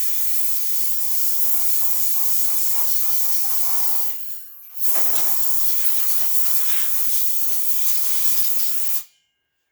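Compressed-air blowgun hissing as it blows air through a chainsaw's fuel lines to check them for holes and leaks. It gives two long blasts with a short break about four seconds in, and the second blast cuts off sharply near the end.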